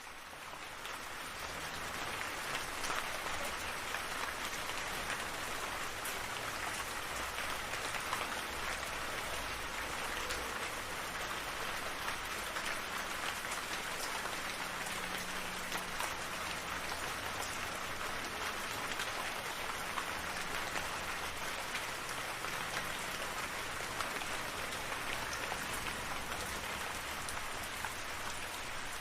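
Steady rainfall, a dense patter of drops on surfaces with no thunder, fading in over the first second and then holding an even level.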